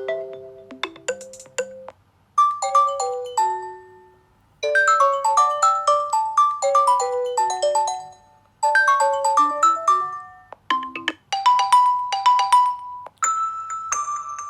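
Stock Nokia 6.1 ringtones playing from the phone: short melodic phrases of bell- and mallet-like notes, stopping and starting again about five times as ringtones are previewed in turn.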